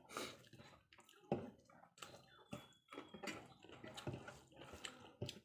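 Eating rice and dal by hand: soft wet squishing as fingers mix and squeeze the rice, with scattered small clicks of fingers against the plates.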